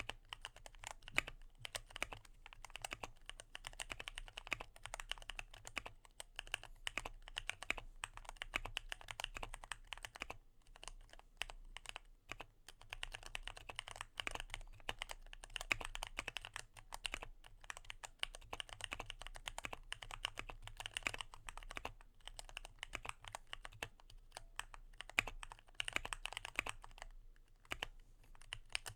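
Continuous fast typing on a Keychron Q1 mechanical keyboard with Gateron Phantom Brown switches, modded with tape, plate foam and PCB gaskets for a poppy, slightly thocky keystroke sound, with brief pauses now and then.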